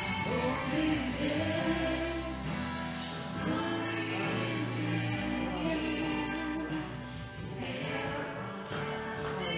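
A slow worship song: women's voices singing long held lines over instrumental accompaniment with sustained low bass notes.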